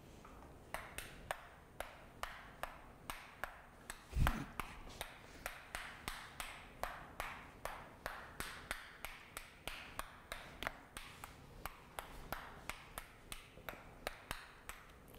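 A steady series of sharp, slightly ringing clicks, about two to three a second, with one dull thump about four seconds in.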